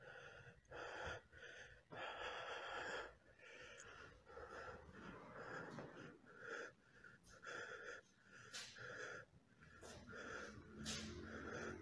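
A man's faint, fast, heavy breathing, about two ragged breaths a second, with a longer gasp about two seconds in: panicked panting after the shock of finding his friend hanged.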